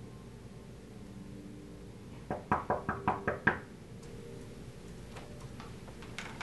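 Knocking on a hotel room door: a quick run of about seven knocks about two seconds in.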